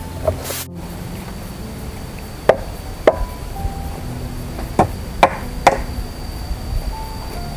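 Five short, sharp chopping strikes on wood, irregularly spaced, beginning about two and a half seconds in, from work on the wooden poles of a hut's frame.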